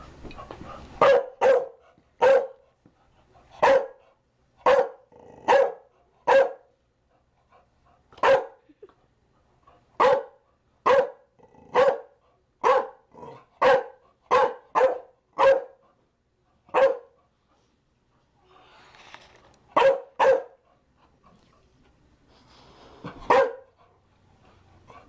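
Chow Chow barking: a run of short, sharp barks about one a second, some in quick pairs, with a few pauses of a couple of seconds in the second half.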